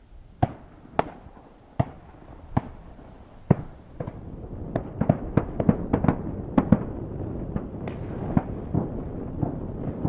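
Duck hunters' shotguns firing in the distance on the season opener. First come single shots about a second apart, then a quick flurry of many shots close together about five to seven seconds in, thinning to a few more near the end. A steady rush of wind on the microphone builds underneath.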